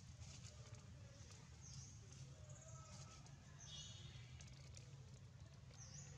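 Near silence: faint outdoor ambience with a steady low hum and faint high chirps recurring about every two seconds.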